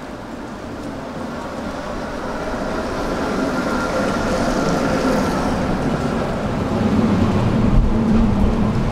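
A heavy vehicle approaching: a rumble that grows steadily louder, with a faint steady whine over it in the middle stretch.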